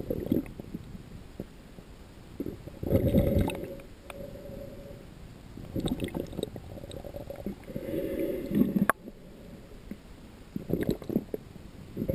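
Muffled underwater gurgling and sloshing picked up by a submerged camera, coming in irregular surges every two to three seconds, with one sharp click about nine seconds in.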